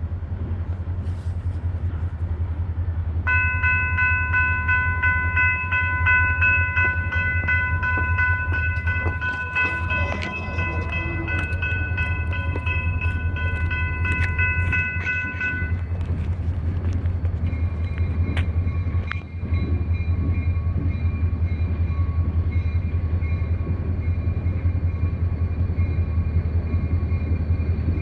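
EMD SD40-2 diesel-electric locomotive running with a steady low engine rumble. About three seconds in, its air horn sounds one long blast of several tones for about twelve seconds. A fainter horn chord comes back a few seconds later and carries on to the end.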